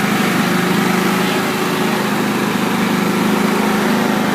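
Riding lawn mower engine running at a steady pitch as the mower is driven, an even, continuous hum.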